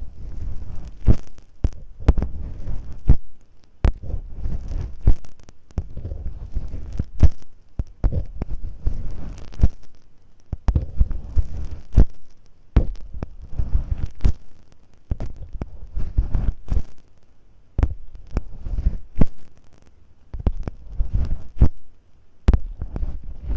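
Masking tape on a microphone being scratched and rubbed close up, ear-cleaning-style ASMR: irregular crackling, rustling strokes with sharp clicks and deep bumps.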